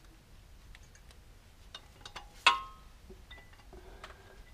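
Faint ticks and taps of metal parts being handled, with one sharp metallic clink about halfway through that rings briefly: steel parts knocking together as the oil pickup tube is worked up toward the LS oil pump.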